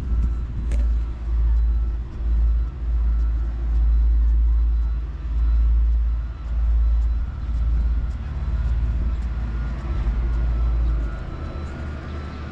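Wind buffeting the microphone: a heavy low rumble that swells and dips about once a second and eases near the end, over road traffic noise.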